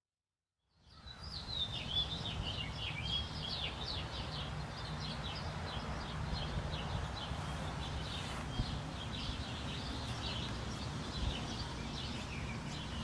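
Outdoor ambience with several small birds chirping and twittering in quick, overlapping calls, over a steady low background rumble; it fades in about a second in.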